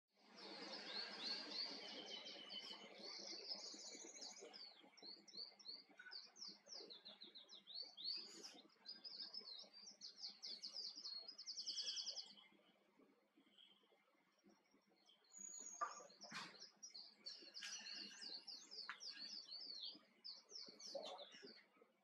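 Male Island Canary (wild canary) singing: a long, fast run of high trills and twittering notes that breaks off about halfway, then starts again a few seconds later.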